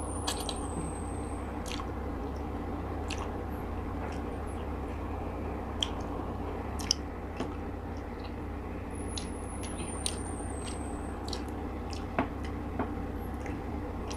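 Close-miked eating sounds of steamed tilapia and rice eaten by hand: soft chewing and scattered short lip smacks and mouth clicks over a steady low background hum.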